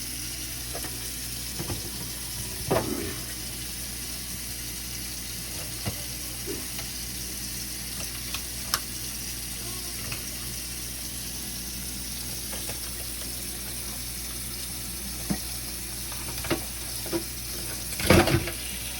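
Kitchen handling of a lobster: scattered clicks and knocks of knife and shell over a steady hiss, with a louder clatter near the end.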